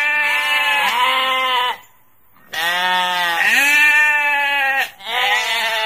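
Sheep bleating: three long, wavering bleats with short pauses between them.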